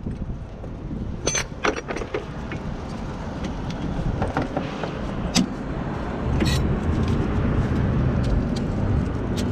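Sharp metallic taps and clinks as a stiff front brake pad is tapped into the caliper bracket, a handful of separate knocks. A low wind rumble on the microphone grows louder about six seconds in.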